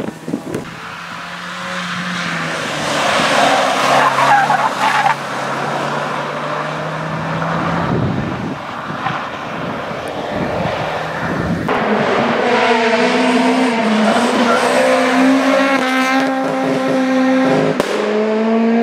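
Small hatchback autoslalom cars driven hard between cones on tarmac: engines revving up and down through the gears, with tyres squealing and skidding in the tight turns. The sound changes abruptly a few times as it cuts from one car to the next.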